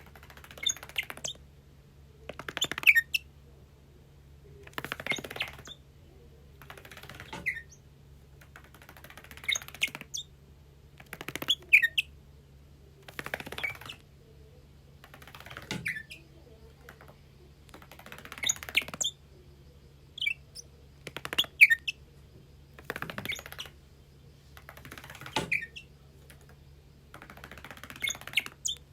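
Bourke's parrot giving short bouts of chirps and scratchy twitters, one bout about every two seconds, its natural calls rather than any mimicked speech.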